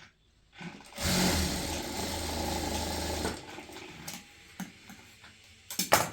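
Electric sewing machine running steadily for about two seconds, then stopping. Sharp clicks follow, with two loud ones near the end.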